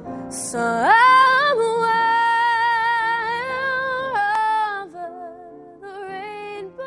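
A young woman sings a slow jazz ballad with grand piano accompaniment. Her voice swoops up into a long held note with slight vibrato, then steps down into softer, shorter phrases over the piano chords.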